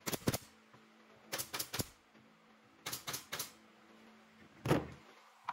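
Pneumatic brad nailer firing into wooden slats in quick clusters of two or three sharp shots, about every second and a half, with one heavier knock near the end.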